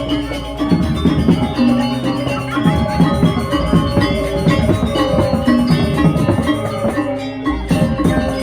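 Balinese gamelan music: struck bronze metallophones ringing in layered, interlocking tones over drums, played continuously.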